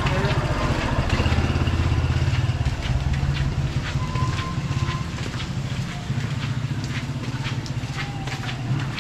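A motorcycle engine running close by, loudest in the first few seconds and easing off after.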